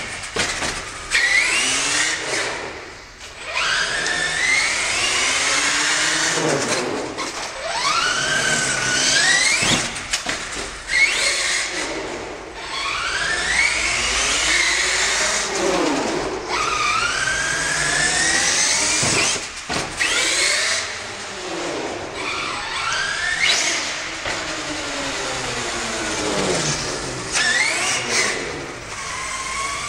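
HPI Savage SS radio-controlled monster truck's small nitro engine revving hard and dropping back over and over as the truck accelerates, jumps and turns, in a concrete underground car park. A few sharp knocks come between the revs.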